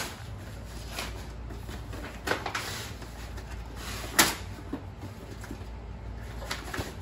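A cardboard shipping box being opened and handled, with scraping, rustling and a few short knocks over a steady low hum; the sharpest knock comes about four seconds in.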